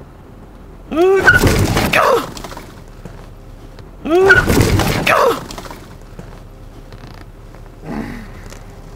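A loud crash-like burst mixed with a swooping, voice-like cry, heard twice about three seconds apart and nearly identical each time, with a faint short cry near the end.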